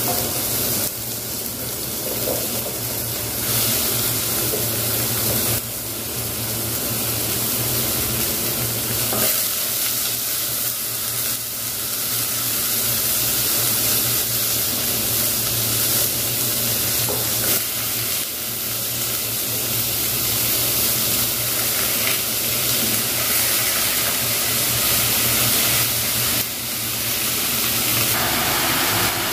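Fish frying in hot oil in a pan: a steady sizzle with a few brief crackles.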